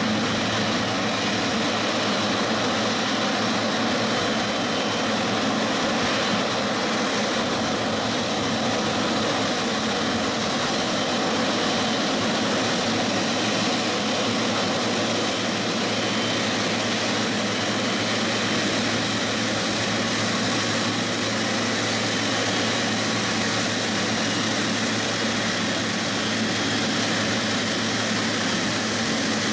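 Boeing 777-300ER's twin GE90-115B turbofans at taxi idle as the airliner rolls slowly: a steady jet whine over a broad hiss, holding an even level throughout.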